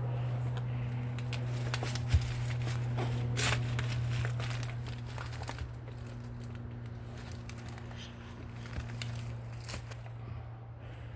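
Footsteps crunching and crackling through dry debris and brush, with irregular snaps, over a steady low hum.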